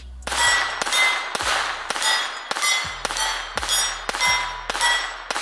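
A pistol fired in a steady string of about eleven shots, roughly two a second, each shot followed by the ring of a steel plate target being hit.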